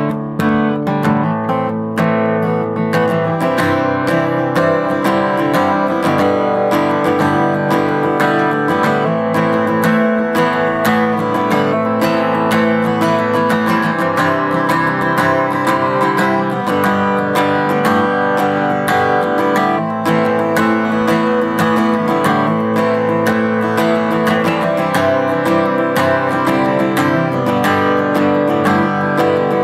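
Taylor acoustic guitar played without pause in a mix of fingerpicking and strumming, with a steady stream of sharp pick attacks over ringing chords. It is recorded through a DSLR's built-in microphone with no processing.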